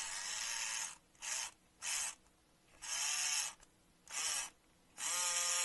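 Small battery-powered electric motor and gears in a model Lancaster bomber's engine nacelle whirring, stopping and starting four times in short bursts, then spinning back up with a steady, slightly rising whine about five seconds in. It stalls when the nacelle halves are squeezed together, which the builder puts down to the supercharger part binding on the drive.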